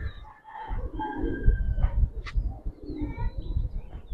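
Domestic pigeons cooing, over a low rumble, with a sharp click a little over two seconds in.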